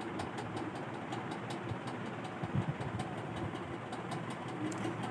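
A machine running steadily, with a low hum and faint, regular ticks about four or five times a second.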